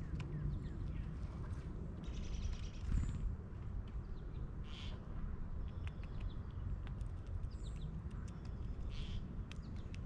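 Wild birds chirping in short high calls, with scattered small clicks as a gray squirrel picks through seed and nuts in a metal tray feeder, over a steady low rumble.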